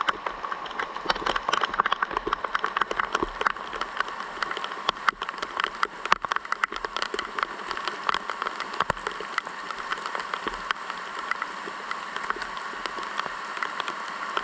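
Rain falling: a steady hiss with many separate drops striking a hard surface close by.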